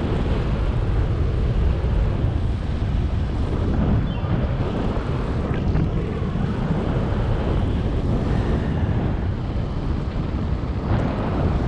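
Wind buffeting the microphone of a paraglider pilot's camera in flight: a steady, low rushing noise.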